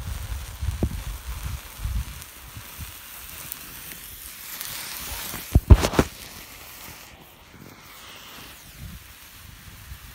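Hand-held Roman candle hissing as its charge burns, then firing with two sharp pops about a third of a second apart, a little past halfway. Low rumbling on the microphone during the first two seconds.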